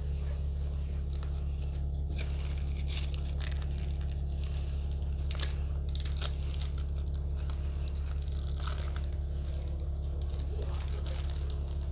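ADL Enviro 400 double-decker bus heard from inside the cabin: a steady low engine and drivetrain hum, with loose fittings rattling and clicking over it and a couple of sharper knocks at about five and a half seconds and again near nine seconds.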